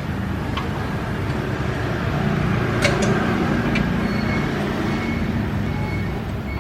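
A steady low engine rumble that grows louder in the middle, with a few sharp metallic clinks about a second in and around three to four seconds in.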